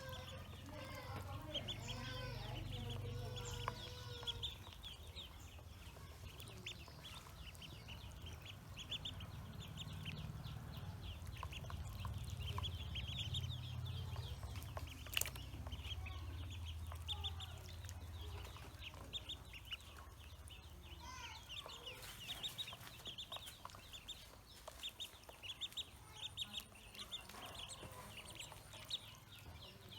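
Pekin ducklings peeping: a constant stream of short, high peeps over a low rumble that fades about two thirds of the way through.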